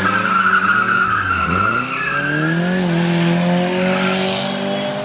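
Car tyres squealing in a burnout or drift over the car's engine revving hard. The squeal is strongest in the first two seconds, then the engine note dips and climbs again about two seconds in and holds high.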